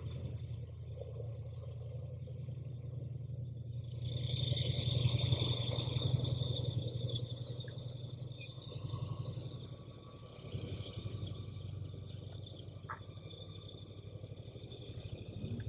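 Airboat engine and propeller running: a steady low pulsing drone, swelling into a louder rush of noise from about four seconds in for several seconds as the airboat powers through a turn.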